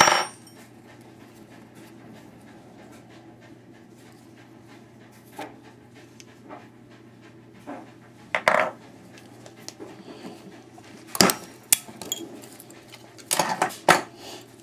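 Scattered metallic clinks and knocks, a handful of them a few seconds apart, as a wrench works on brass gas fittings to free their steel parts.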